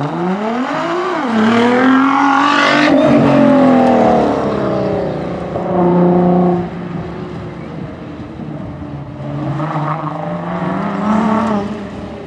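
Nissan GT-R's twin-turbo V6 revving hard on an autocross run. The engine note climbs, dips briefly about a second in, climbs again to a peak near three seconds, then falls away. It holds a steady note for a moment around six seconds and climbs once more near the end.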